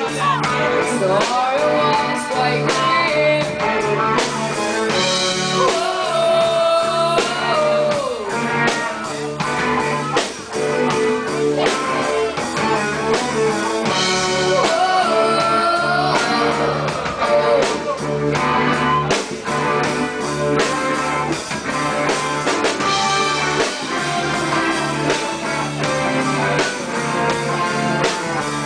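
Live band playing a rock song, a singer's voice over guitar, bass and drums.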